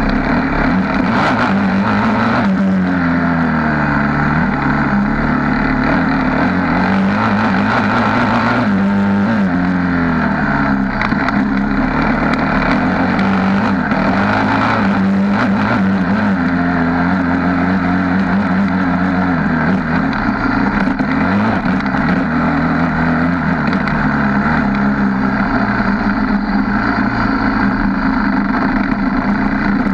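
Suzuki LTR 450 quad's single-cylinder four-stroke engine being ridden hard, close up from the front bumper. Its pitch rises and drops again and again with the throttle.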